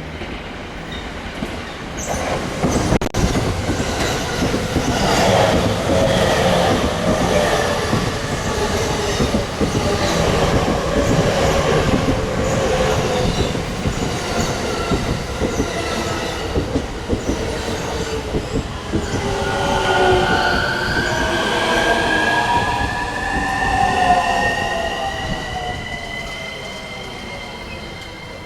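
Electric train running through the station on the Tōkaidō Line, its wheels clattering rhythmically over rail joints. In the second half, high squealing tones slide in pitch while the sound slowly fades.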